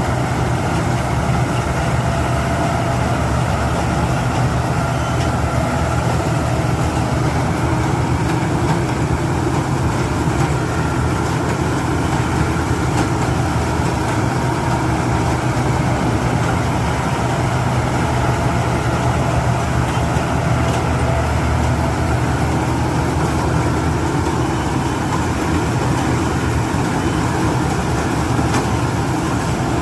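Rice combine harvester's engine running steadily at a constant pace, loud and unchanging.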